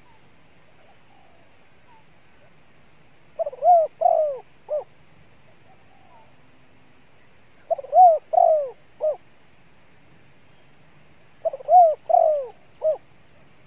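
Spotted dove cooing: three phrases about four seconds apart, each a quick run of a few arched notes. It is a male decoy bird calling to draw wild doves.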